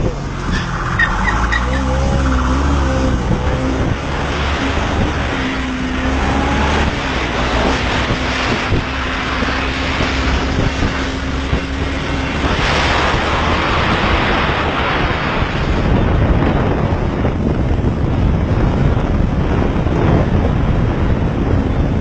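Engine of a moving police vehicle running at speed, under heavy wind and road rush. Its note wavers in the first few seconds, then holds steady for several seconds, and the rush grows heavier in the second half.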